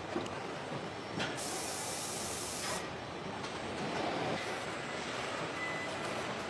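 Steady machinery noise of a factory floor. About a second in, a hiss bursts out for a second and a half and then cuts off.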